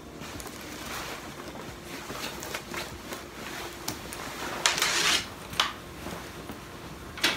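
Rustling of a padded winter coat being taken off, with a louder swish of the fabric about five seconds in and a couple of sharp clicks near the end.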